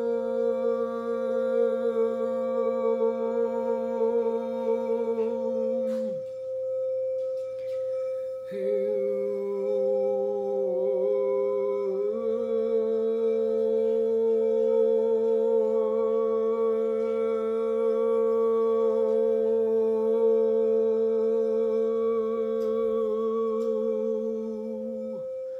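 A frosted quartz crystal singing bowl is rubbed around its rim with a wand and holds one steady ringing tone. A woman's voice hums along in long held notes below it. The humming breaks off about six seconds in, comes back lower a couple of seconds later, rises again about twelve seconds in and stops just before the end. There is a light click about six seconds in.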